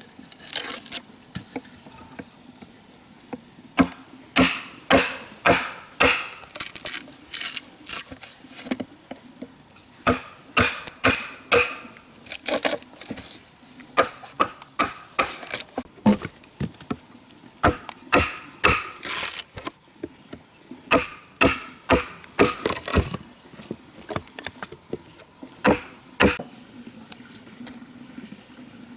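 Wood being chopped: a long run of sharp, irregular strokes, about one or two a second.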